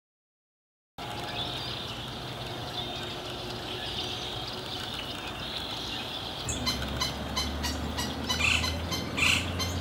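Silence, then about a second in, birds calling in the background over a steady outdoor hiss. About two-thirds of the way through, a low steady rumble comes in along with a string of sharp clicks.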